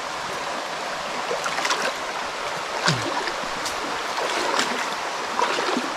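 Creek water running steadily, with small splashes and knocks scattered through it.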